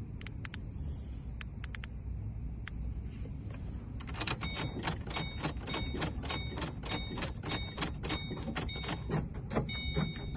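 A few scattered clicks, then from about four seconds in a rapid, even clicking of about four clicks a second. A faint high beeping tone comes and goes in time with it.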